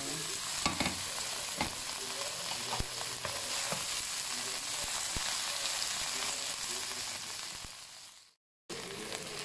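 Shredded cabbage and bell peppers sizzling in a hot wok with oil and onions as they are stirred with a plastic spatula, with a few light knocks of the spatula against the pan. The sizzle fades and cuts out briefly about eight seconds in.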